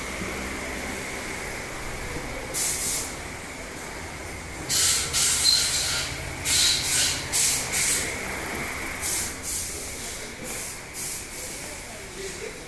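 Repeated short hisses of released compressed air, a dozen or so bursts lasting a fraction of a second to about a second, over a steady machine hum with a faint high whine.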